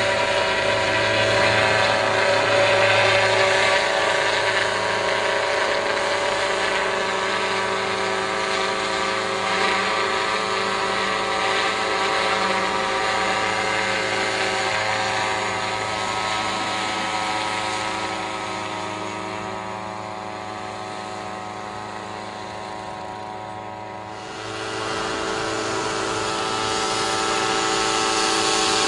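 Small unmanned crop-spraying helicopter's engine and rotor running steadily as it hovers low, a continuous drone made of many steady tones. It grows quieter in the second half, then gets louder again a few seconds before the end.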